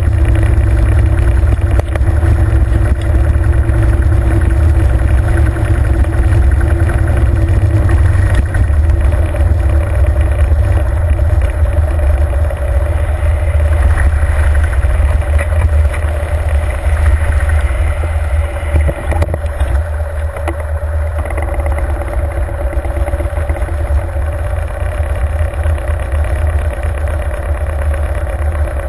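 Harley-Davidson Fat Bob's V-twin engine rumbling at low town speed. It eases off about twenty seconds in and runs more steadily and a little quieter after that, ticking over at idle near the end.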